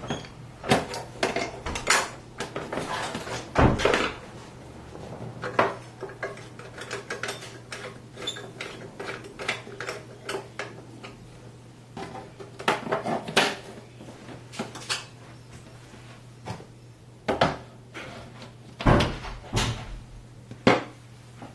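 Philips GF 110 portable record player's case being handled and closed by hand: an irregular string of clicks and knocks as the lid is fitted and pressed shut.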